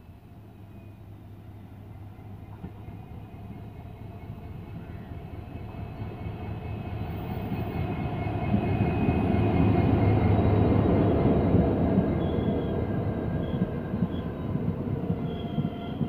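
EMD WDP-4D diesel-electric locomotive with its two-stroke V16 engine approaching and passing, its engine drone growing steadily louder to a peak about ten seconds in, then the passenger coaches rolling by on the rails.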